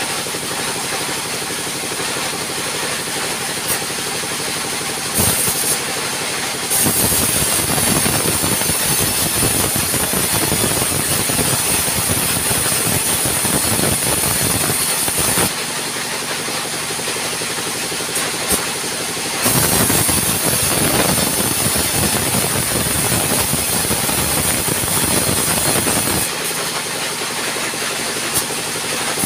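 Sawmill band saw running with a steady machine hum. Twice it cuts through a log, each time with a louder rasping noise that lasts about eight seconds, from about seven seconds in and again from about twenty seconds in.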